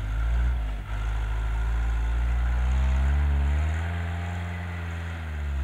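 UAZ-469 off-road vehicle's engine revving under load as it works to drive free of deep snow. The engine note climbs about three seconds in, holds, and dips briefly near the end.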